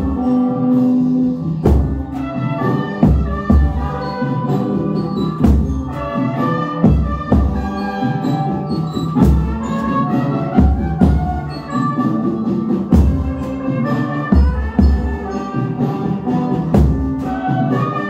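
Large marching bass drum (fuzileiro) struck with soft mallets, deep booms every second or so, played along with a recorded brass band arrangement whose melody runs throughout.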